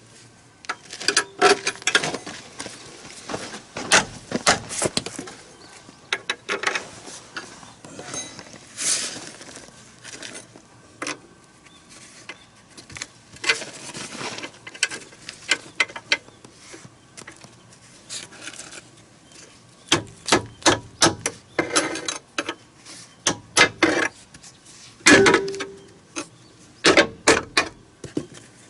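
Irregular metallic clanks and knocks of hand tools on the steel joint fittings of a snowcat's rubber crawler track, with a quick run of knocks near the end and a couple of strikes that ring briefly.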